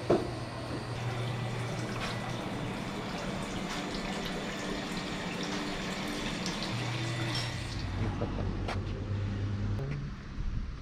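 Water running or pouring in a steady rush.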